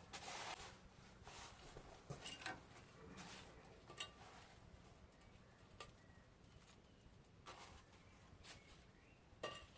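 Faint, scattered clinks and scrapes of bricklaying: a trowel tapping and scraping on clinker bricks and mortar, with a sharper clink about four seconds in and another near the end.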